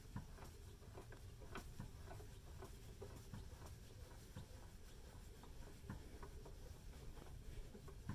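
Scissor jack being cranked by hand: faint, irregular small clicks and ticks from the crank rod and screw, over a low steady rumble.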